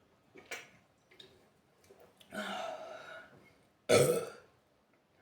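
A woman burping, gassy from a carbonated sparkling hydration drink. A longer burp comes about two seconds in, then a short, louder one about four seconds in.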